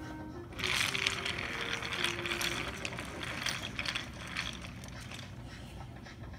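Motorised toy train engine running along wooden track with a string of freight cars, its geared motor whirring and the wheels clattering over the track joints. It starts about half a second in, is loudest for the next two seconds, then fades slowly.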